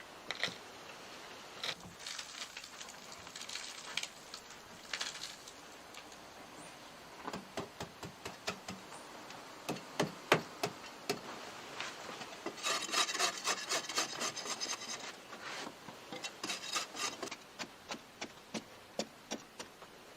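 Hand work on wood: rough scraping or rasping strokes in a few bouts, and from the middle on, many light knocks and taps.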